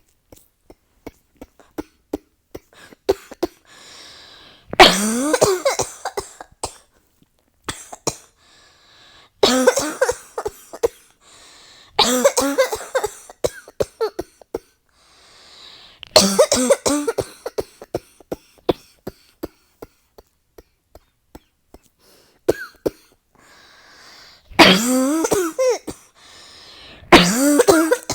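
A person in a nonstop coughing fit: about six bouts of rapid, repeated coughs a few seconds apart, with faint breaths and small clicks in between.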